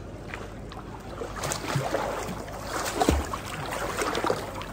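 A swimmer's arm strokes splashing and sloshing through pool water, close to the microphone. The splashing builds from about a second in and is loudest around three seconds.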